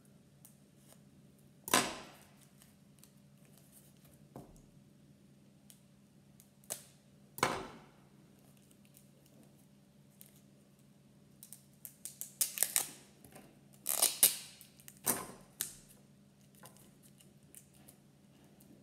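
A package of trading cards being handled and opened: short, sharp rustles, crinkles and scrapes of packaging. There are a few isolated ones, then a busy run of them about twelve to fifteen seconds in.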